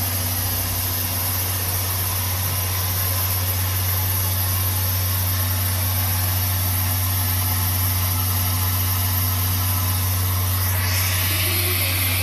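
C11 steam locomotive standing in steam with a steady low rumble and hiss. About ten and a half seconds in, a louder hiss of steam venting from the top of the boiler starts and keeps on.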